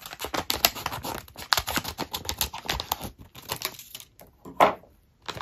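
Scissors cutting open a plastic foil toy blind bag, a quick run of crisp snips and crinkles for about four seconds, with one louder crackle near the end.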